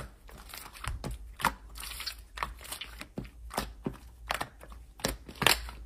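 Hands stretching and squeezing clear golden slime, making irregular sticky clicks and pops, two or three a second.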